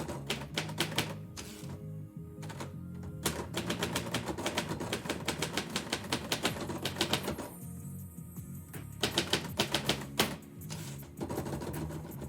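Typewriter keys being struck in quick runs of clicks, with a long dense run in the middle and shorter bursts before and after, over background music.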